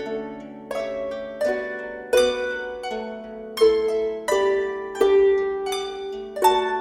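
Harp played slowly: single plucked notes, about one or two a second, each ringing on and fading as the next is plucked, in a calm melody.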